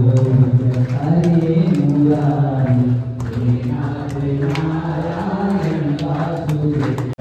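Group of voices chanting a devotional song in unison, long held notes sliding between pitches, with a few short sharp clicks over it.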